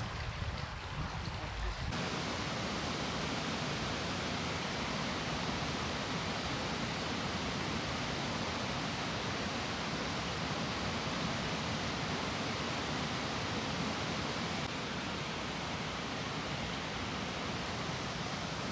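Steady rushing of a small brook's flowing water, growing louder and fuller about two seconds in and then holding even.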